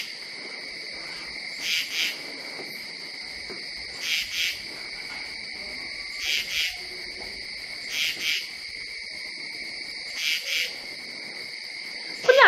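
Night insect chorus: a steady high cricket trill, with a louder double chirp repeating about every two seconds.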